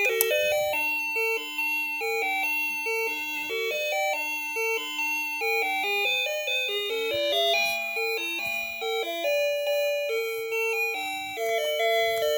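Luckarm doorbell chime playing one of its built-in melodies: a running tune of clear, stepped electronic notes.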